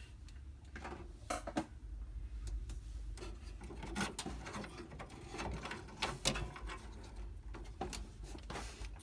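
Light handling noise from working on computer parts by hand: scattered small clicks, taps and rubbing, irregular throughout, over a low steady hum.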